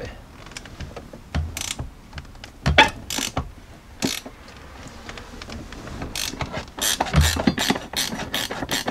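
Hand ratchet wrench clicking as it loosens a nut, in irregular short runs of clicks that come faster and closer together in the last few seconds.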